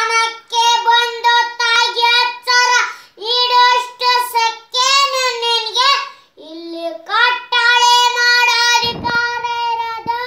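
A young boy singing loudly in a high voice, in phrases with long held notes and short breaths between them.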